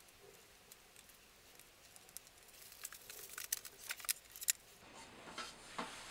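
Epoxy-resin and wood coasters being picked up, turned over and set back down on a tray, giving light clicks and taps. A quick cluster of sharp clicks comes about three to four and a half seconds in, then softer handling.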